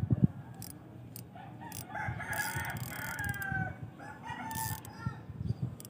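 A rooster crowing: one long crow about two seconds in, followed by a shorter call about a second later. A brief knock at the very start, and faint clicks of a spinning reel being turned.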